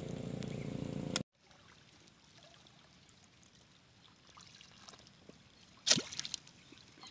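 A thin rod slapping down into shallow water: one sharp splash about six seconds in, followed by a couple of smaller splashes. Before it, a short stretch of steady outdoor background noise cuts off abruptly about a second in, leaving near quiet.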